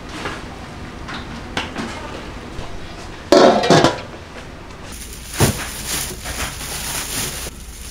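A metal lid set down on a large metal cooking pot with a loud clank that rings briefly, amid light kitchen clatter. After it come handling noises and a dull thump.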